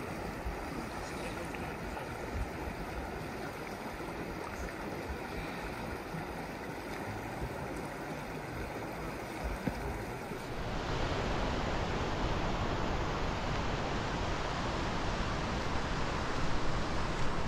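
Steady rush of running water from a mountain stream. About ten seconds in it turns abruptly louder and fuller.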